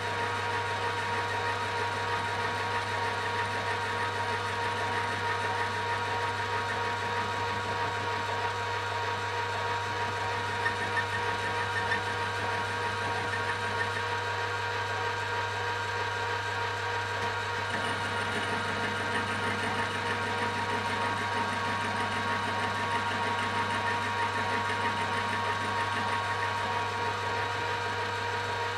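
Metal lathe running with an end mill spinning in its chuck, milling an aluminium plate fed against the cutter on the cross slide. The sound is a steady machine whine over a low hum, with a few light ticks about ten to twelve seconds in.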